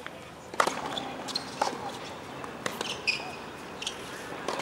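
Tennis rally on a hard court: a serve is struck about half a second in, then the ball cracks off the racquets about once a second, with a brief squeak of shoes near the middle.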